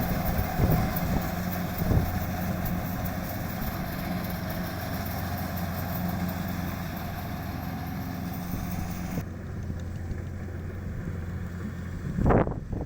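Kubota DC-70 combine harvester's diesel engine running steadily with a low hum. The higher hiss drops away abruptly about nine seconds in. A single loud thump comes near the end.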